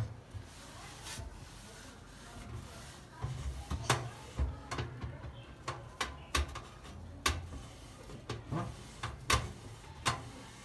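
Irregular clicks and light knocks, about ten of them, of household objects being handled, starting about three seconds in over a low rumble.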